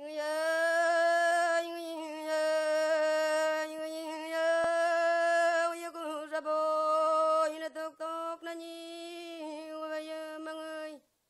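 Unaccompanied solo voice singing a Yami (Tao) lullaby in a chanted, near-monotone recitation style, holding long notes close to one pitch with small steps. It breaks off near the end.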